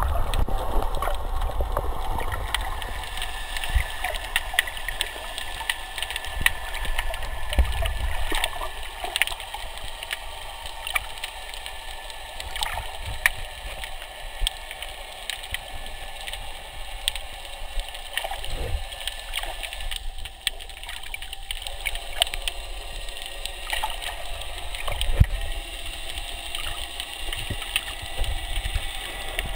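Underwater sound picked up by a submerged camera: a steady hiss and low rumble of moving water, with many scattered sharp clicks and crackles, and a few dull thumps.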